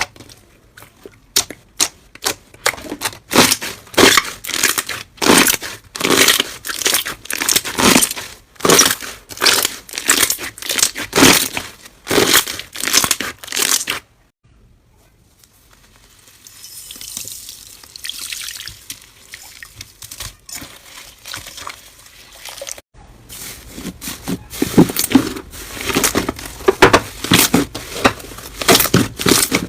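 Slime being squeezed and worked by hand, giving dense crackling and popping clicks. Partway through it cuts to a softer, hissy crinkling for several seconds, then cuts back to crackling pops near the end.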